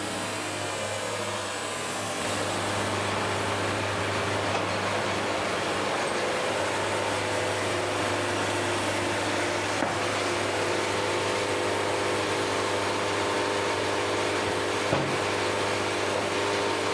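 Portable band sawmill running steadily: a constant engine hum under a broad whir of the moving band.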